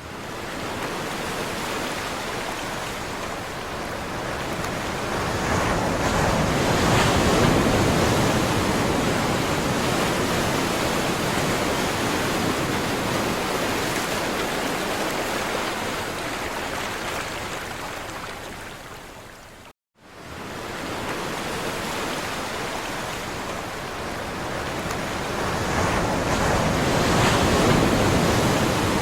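Ocean surf: waves breaking and washing in as a steady roar that swells twice to a louder surge. The sound cuts out for an instant about two-thirds of the way through, then resumes.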